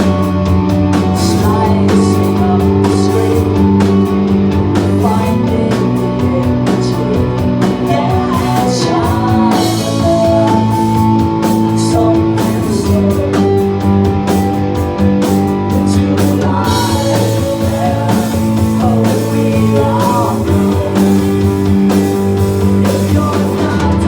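Live rock band playing an instrumental passage: electric guitars holding sustained chords over bass and a steady drum beat.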